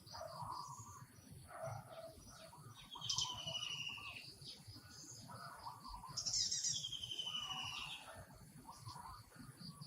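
Birds calling in forest ambience: two louder trilled calls, about three and six seconds in, each lasting about a second, over softer scattered chirps.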